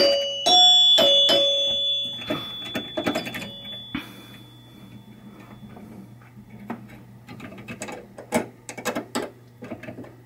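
A freshly rebuilt pinball chime box: its metal chime bars are struck a few times in quick succession and ring as clear bell tones that fade out over about two seconds. Then come light metallic clicks and small knocks as the chime plungers and mounting hardware are handled and adjusted.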